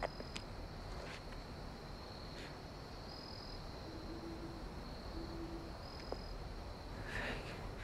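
Night forest ambience: a steady high insect drone with short higher chirps every second or so, and an owl hooting twice, low and short, about four and five seconds in. A few faint rustles of leaves underfoot come in, the most noticeable near the end.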